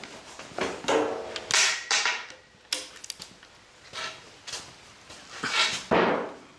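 Metal hand tools and engine parts clanking and scraping: a string of sharp, uneven knocks and clinks, some ringing briefly, while the nuts are taken off an engine's connecting rod cap.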